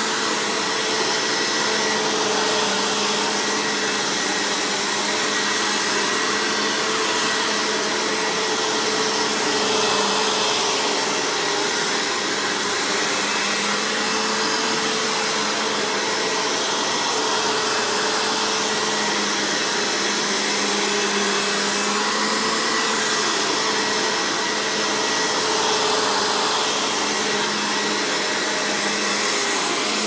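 Dirt Devil Featherlite 085570 upright vacuum's 12-amp bypass (clean-air) motor running steadily: a rush of air with a constant motor hum and a faint high whistle.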